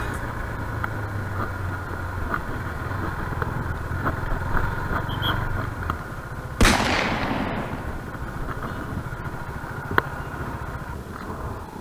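KTM 390 Duke's single-cylinder engine running at low speed in traffic, heard through the bike-mounted action camera. About six and a half seconds in, a sudden loud hiss fades over about a second, after which the engine is quieter; a single sharp click comes near the end.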